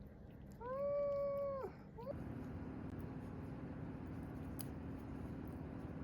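A Pomeranian gives one high, steady whine lasting about a second. About two seconds in, a steady low hum starts.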